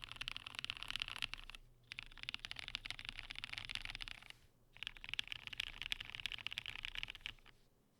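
Fast typing on a KBDfans KBD67 Lite mechanical keyboard with lubed Kailh-stem MX Black linear switches and PBT keycaps, mounted with no plate on a silicone pad: three runs of rapid key clicks, each broken off by a short pause, the last ending shortly before the end.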